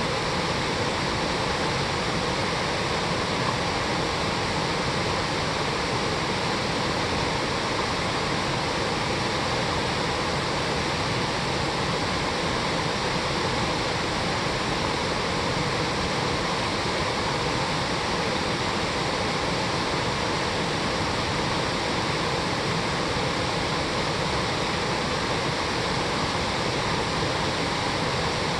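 Rain-swollen mountain stream rushing over rocks, a steady, even wash of water with no breaks.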